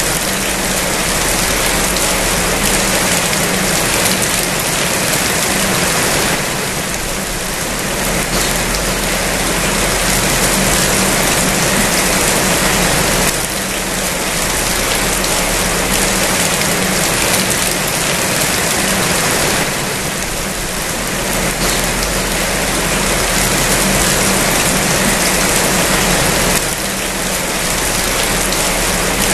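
Rain falling steadily, a dense even hiss with slight dips in loudness about every seven seconds.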